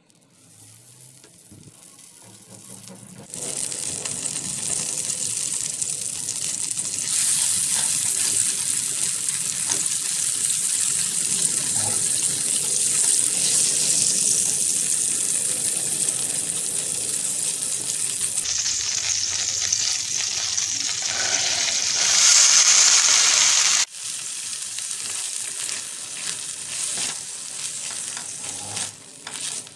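Butter sizzling as it melts in a stainless steel pan, stirred with a silicone spatula. The sizzle builds over the first few seconds and cuts off abruptly late on, followed by quieter stirring of sweet corn kernels in the pan.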